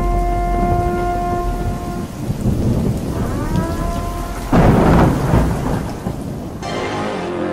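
Rain falling, with rolling thunder and a loud thunderclap about four and a half seconds in. A steady siren-like wailing tone holds through the first two seconds and rises again near three seconds.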